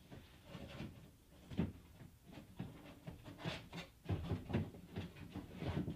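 Irregular knocks, clicks and rustles of a soft-close door latch unit and its wiring being handled and shifted inside a car door's metal inner frame, with a sharper knock about a second and a half in and a busier run of knocks and clicks in the last two seconds.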